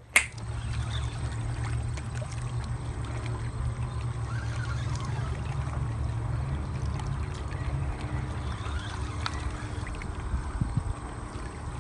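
Wind rumbling on a phone's microphone at the water's edge, with small waves lapping against the shore rocks. The rumble eases a little in the second half.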